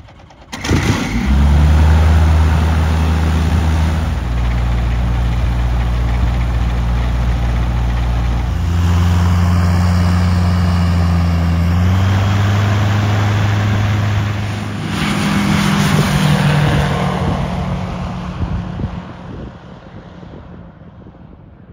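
Rotax 916 turbocharged aircraft engine of a JMB VL3 light aircraft starting about half a second in, then running through a series of short clips at different steady engine speeds. The sound fades away over the last few seconds.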